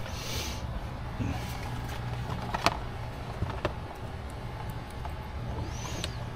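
Dash cam wire being worked through the rubber wiring grommet by hand: light rustling and a few sharp clicks, about two and a half and three and a half seconds in, over a steady low hum.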